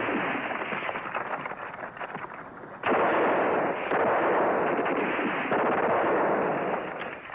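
Rapid, continuous gunfire from a war-drama battle scene, a dense crackle of shots. It thins out about two seconds in and comes back loud and heavy just before the three-second mark.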